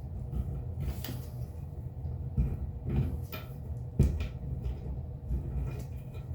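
Hands working a cap onto a plumbing fitting: scattered small clicks and knocks over a low rumble of handling noise, with a few heavier thumps, the loudest about four seconds in.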